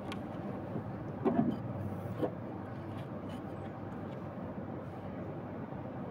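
Steady low background rumble, with a few soft bumps and rustles about a second in and again near two seconds in, as someone moves right beside the phone.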